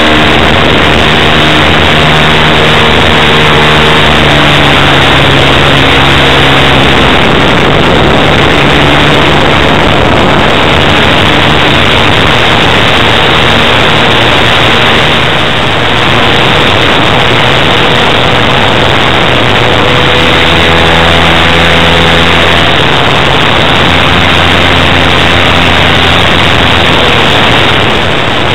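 OS FS-120 Surpass III pumped four-stroke glow engine of an RC Corsair model running hard in flight, heard close up from on board with a loud rush of noise. Its note drops and rises again as the throttle changes.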